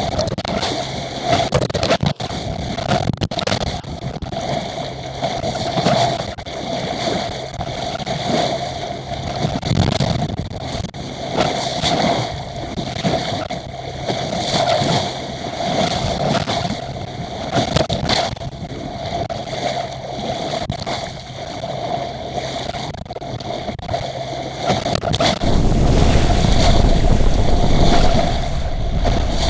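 Small sailboat under way in a strong wind, water rushing and splashing along the hull with a steady mid-pitched hum underneath. About 25 seconds in, heavy wind buffeting on the microphone comes in and stays.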